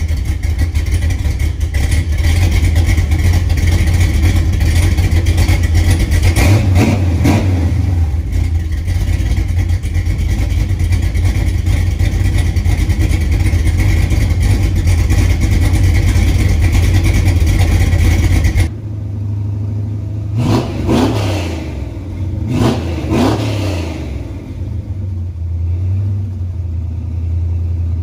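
Square-body pickup truck's engine running with a loud, steady drone and a brief rev. About two-thirds of the way in the sound turns quieter, and the engine is revved twice, each rev rising and falling.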